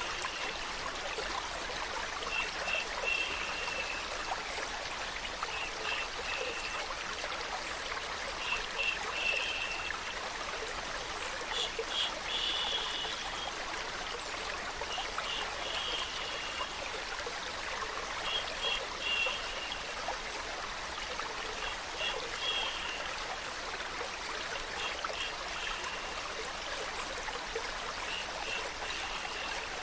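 Running water trickling steadily like a small stream, with short brighter trickling notes coming back every two to three seconds.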